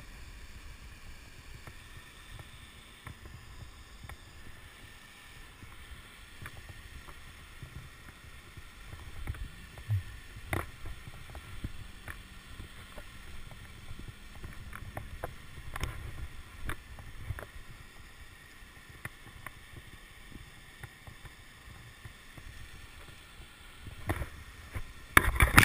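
Low rumble of wind and body movement against a chest-mounted camera's microphone during a rock climb, with scattered clicks and scrapes from the climber's gear and movement on the granite. Louder rustling and knocking comes near the end.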